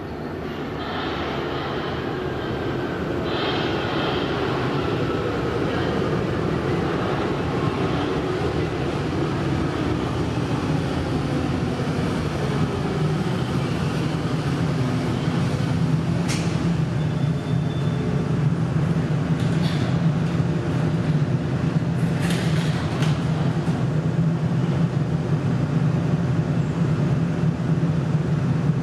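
Munich U-Bahn B-series train pulling into an underground station: a rumble growing louder with a falling whine as it brakes, then a steady low hum as it stands. A few short clicks and hisses come in the second half as it stops and its doors open.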